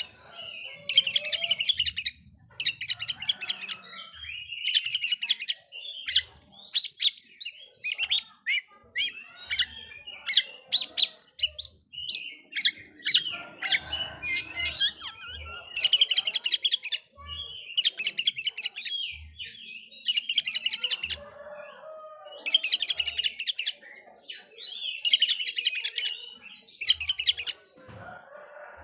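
Oriental magpie-robin (kacer) singing: short rasping, rattling phrases repeated every second or two, mixed with varied whistled and gliding notes. Faint low knocks are heard now and then.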